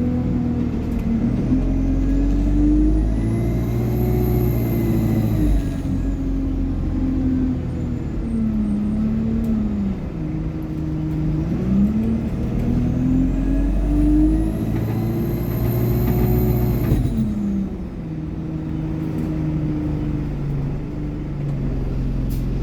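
Alexander Dennis Enviro200 bus's diesel engine and Allison automatic gearbox accelerating, the engine note climbing and dropping as the gears change. A high turbo whine rises and falls twice, a few seconds in and again about two-thirds through, the second time cutting off suddenly.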